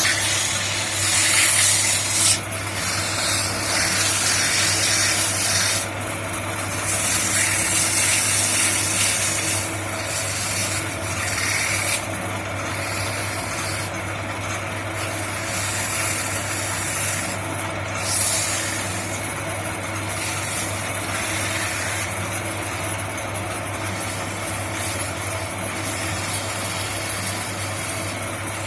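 Homemade wood copying machine at work: a steady motor hum under rasping cutting noise on wood that swells and fades every few seconds, heaviest in roughly the first ten seconds.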